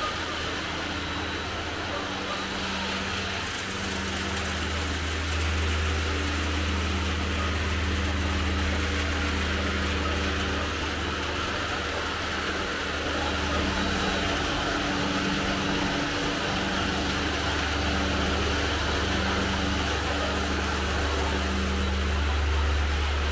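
Steady low machine drone from workshop machinery, growing louder a few seconds in, with a higher hum on top that cuts in and out every second or two.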